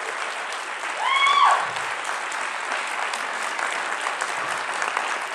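Audience applauding, a dense steady clapping, with one loud whoop from the crowd about a second in.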